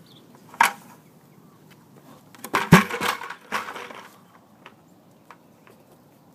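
A plastic bucket handled on gravelly dirt: a short scrape about half a second in, then a knock and a rattling scrape about two and a half seconds in that lasts over a second.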